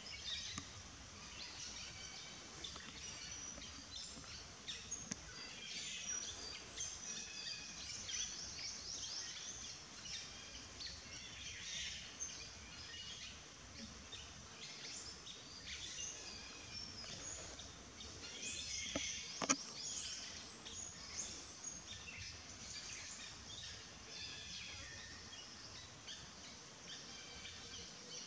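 Many small birds chirping and trilling over a faint steady outdoor hiss, with one sharp click about two-thirds of the way through.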